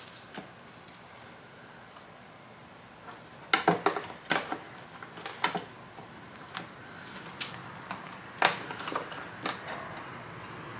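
Scattered clicks and knocks of parts and wiring being handled on a partly reassembled scooter, loudest in a cluster about three and a half seconds in and again about eight and a half seconds in, over a faint steady high-pitched trill.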